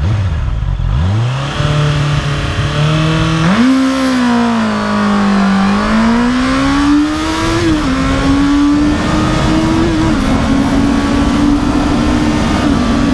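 Honda CB650R inline-four engine, restricted to 35 kW, accelerating hard from a standstill through the gears. The revs sweep up from idle, and the note climbs again and again, dropping sharply at each upshift, most clearly about two-thirds of the way through and again shortly after.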